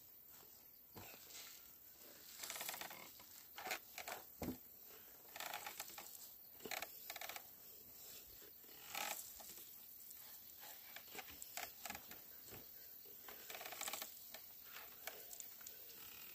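Traditional wooden lever oil press squeezing a sack of ground seed paste: faint, irregular creaks, clicks and crackles from the wooden pole, plank and strained sacking as oil is pressed out.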